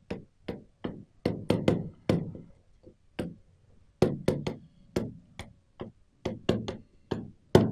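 Stylus tapping and knocking on the glass of a touchscreen display during handwriting: a quick, irregular run of sharp taps, about three a second.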